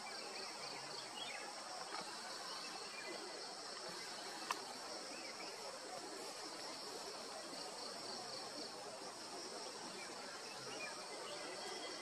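Steady high-pitched drone of insects in the forest, with a few faint bird chirps. A single sharp click about a third of the way in.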